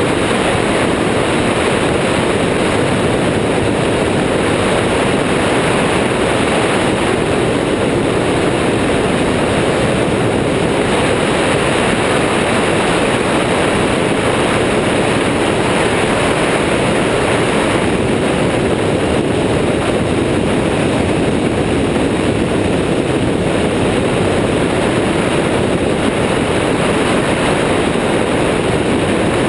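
Steady rush of wind buffeting a wing-mounted camera's microphone, blended with the drone of an Airborne XT Tundra ultralight trike's engine, in level cruise flight.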